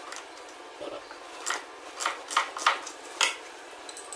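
Hand wrench working a steel A-arm pivot bolt loose: a series of about five short, sharp metallic rasps, roughly two a second, starting about a second and a half in.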